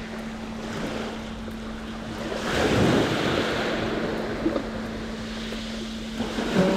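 Sea waves washing against a rocky shore, with wind buffeting the microphone. One wave swells up loudest about two and a half seconds in, and a faint steady low hum runs underneath.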